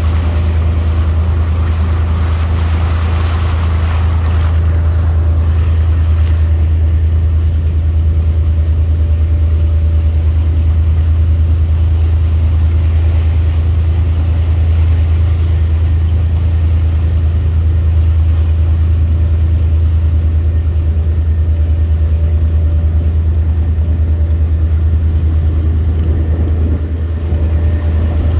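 A boat's engine runs steadily with a deep, even drone. Wind and water rush over it for the first several seconds.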